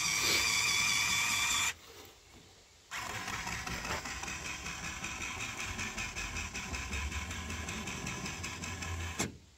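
Small electric motor of a Run-Chicken T50 automatic coop door running as the door slides shut: a steady whine that cuts out for about a second near the start, then runs on steadily and stops just before the end.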